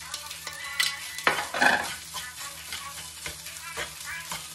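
Metal spatula scraping and tapping in a frying pan as prawns and vegetables are scraped in and stirred through fried rice, over a sizzle. A louder burst comes about a second and a half in.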